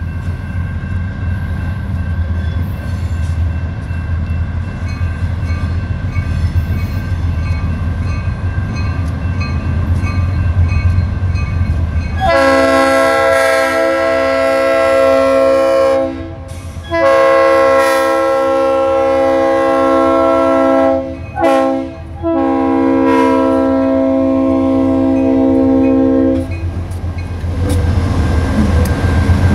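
Diesel freight locomotives approaching with a steady low engine rumble, then the lead locomotive's air horn sounds a chord of several notes in the grade-crossing pattern: long, long, short, long. Near the end the engines pass close by and get louder.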